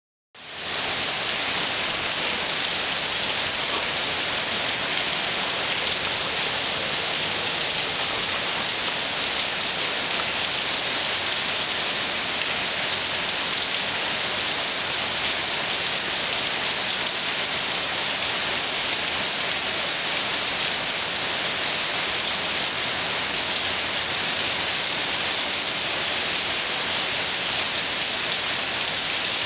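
Steady, even hiss that does not change, with no separate drops, knocks or other events.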